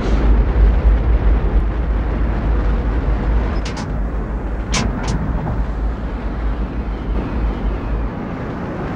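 Rocket engine running: a steady rumble with deep bass that drops away near the end. About three and a half to five seconds in, two pairs of sharp clicks sound over it, as the briefcase latches snap open.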